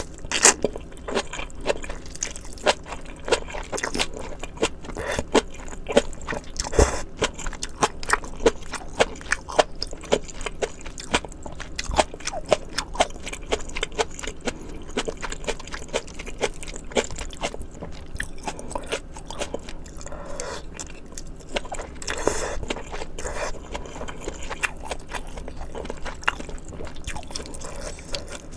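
Close-miked chewing of spicy maratang ingredients: crisp crunching and wet mouth sounds, a dense run of small clicks, with a few louder, noisier stretches.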